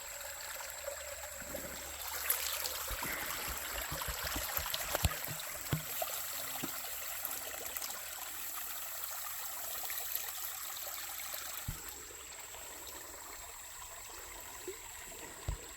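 Creek water running steadily, with scattered small clicks and knocks between about two and twelve seconds in.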